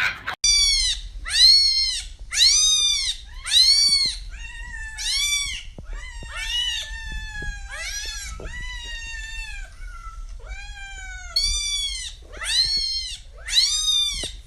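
A cat meowing over and over, about one meow a second. Each meow rises and falls in pitch, with a few longer, lower ones in the middle.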